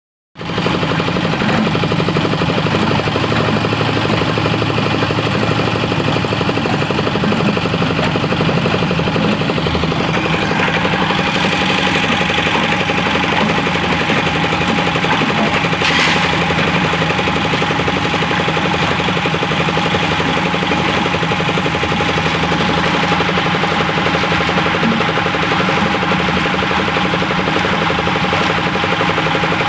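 An engine running steadily, with a small change in its tone about ten seconds in.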